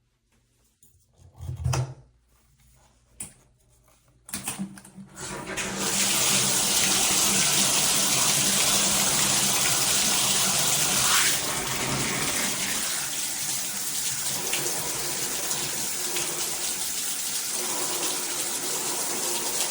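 A few short knocks, then about five seconds in water starts spraying from a handheld metal shower head and runs steadily, a little quieter from about halfway on.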